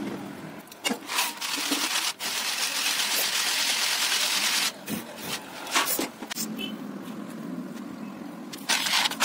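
Roasted peanuts being rubbed by hand in a plastic colander to strip their skins: a steady dry rustling for about four seconds, then scattered clicks and knocks of the nuts and container.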